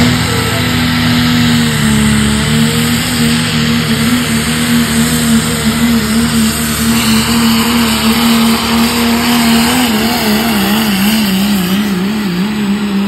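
Diesel pickup truck engine running loud at high rpm under full load while pulling the sled, a steady drone. A higher whine joins about seven seconds in, and from about ten seconds the pitch wavers rapidly up and down.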